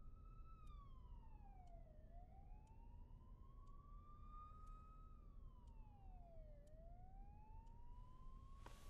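Faint siren wailing, its pitch rising slowly and then dropping quickly in a cycle of about four and a half seconds, over a low steady rumble.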